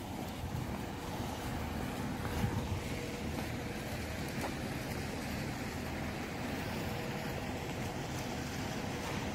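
Steady outdoor rumble and hiss, with wind buffeting the phone's microphone and a faint steady hum underneath.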